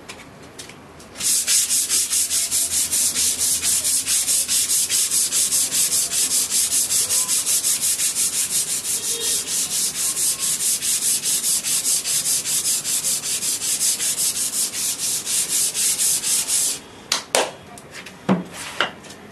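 Fine sanding of a coconut grater's base by hand with sandpaper, rubbed back and forth in quick, even strokes, about five a second. The sanding stops a few seconds before the end, and a few short knocks follow.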